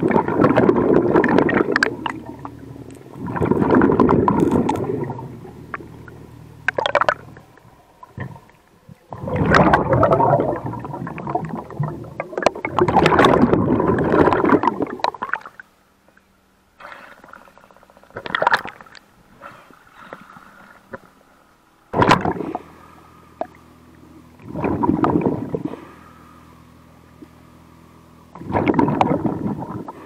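A diver breathing underwater through a hookah air regulator: loud bursts of exhaled bubbles every few seconds, with a steady low hum and occasional sharp clicks in between.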